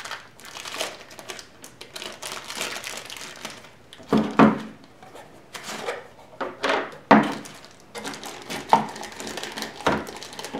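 Thin plastic bag crinkling and rustling as it is handled around a small oil-sample bottle, with several short, louder knocks of the bottle being handled against the table from about four seconds in.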